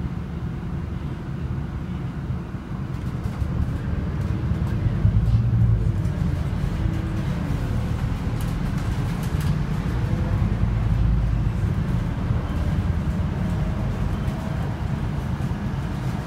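Cabin noise inside a Scania Citywide LFA articulated city bus under way: the engine and drivetrain running with a deep rumble and road noise. A faint whine rises in pitch a few times, and the sound grows louder about four seconds in.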